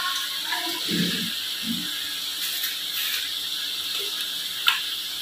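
A plastic jar is handled and its screw lid twisted open: a few soft knocks, ratchety clicking, and one sharp click near the end, over a steady hiss.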